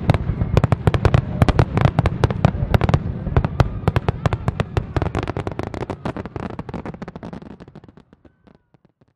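Fireworks crackling: a dense, rapid run of sharp pops over a low rumble, thinning out and dying away over the last few seconds.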